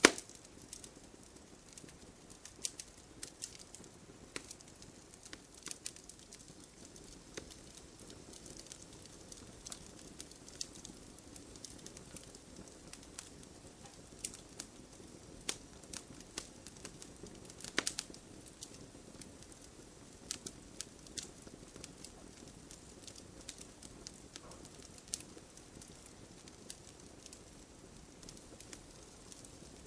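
Wood fire crackling: irregular sharp pops and snaps over a soft low hiss. A loud pop comes right at the start and another about eighteen seconds in.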